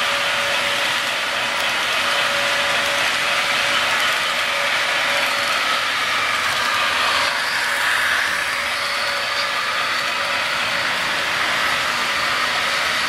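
HO scale model double-stack train rolling past on the layout track: a steady rattling and clicking of its cars' small wheels over the rails, over an even hiss.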